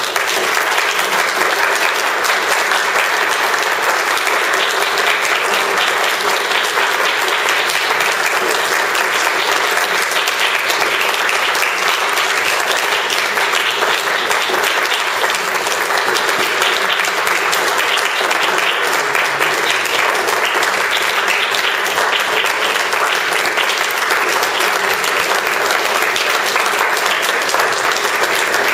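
Audience applauding, a dense, steady clapping held at an even level throughout.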